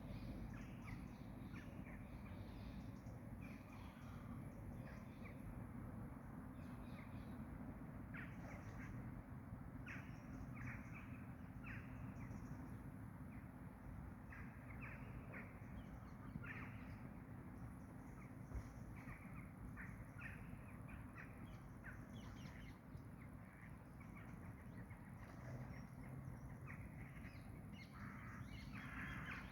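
Birds calling outdoors, with short calls repeated on and off throughout and a cluster near the end, over a steady low background rumble.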